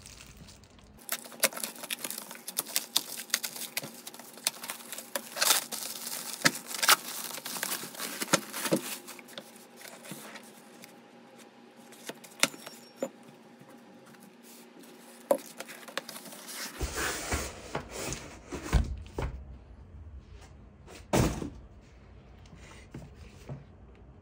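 Plastic stretch wrap cut with a utility knife and pulled off a parcel, crackling with many sharp clicks and taps, then cardboard being handled. It is quieter in the middle, with a few heavier thumps near the end.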